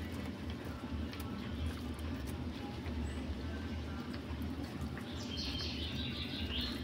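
Domestic cat growling low and continuously while it eats, guarding the piece of prey or meat it holds, with small crunching clicks of chewing. Near the end a higher, hissy sound lasts about a second and a half.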